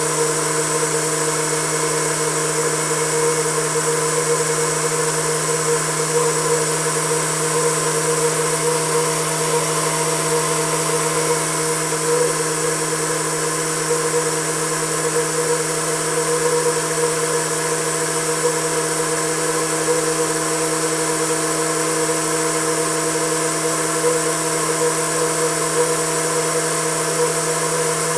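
Homemade Tesla turbine spinning at about 9,300 to 9,600 rpm on a 15 psi supply, slowly gaining speed. It gives a steady whine with several fixed tones, the lowest matching its rotation rate, over a constant hiss.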